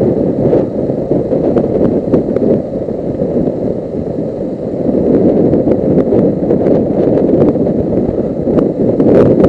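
Wind rushing over a helmet-camera microphone while riding a Suzuki GS500E motorcycle at road speed. It eases for a couple of seconds in the middle, then builds again.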